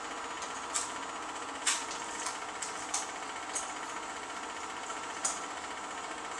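Film projector running with a steady mechanical whir, broken by a few sharp clicks spread unevenly through the stretch.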